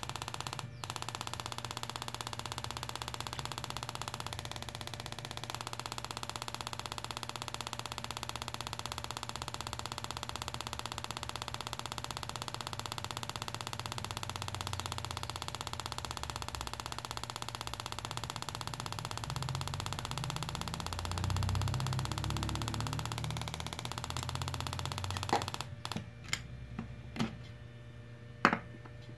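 Stick ignition coil from a KTM 1190 Adventure firing a spark plug in a bench test jig: a steady, very rapid crackling buzz of sparks that cuts off near the end. A few sharp clicks follow as the coil and leads are handled.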